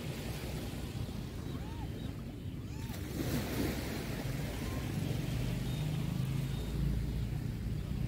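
Small waves washing up a sandy shore, one wash swelling about three seconds in, over a steady low engine hum from a boat out on the bay.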